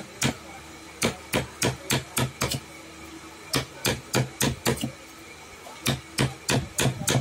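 Hammer blows in quick runs of five or six, about three a second, with short pauses between the runs, over a faint steady hum.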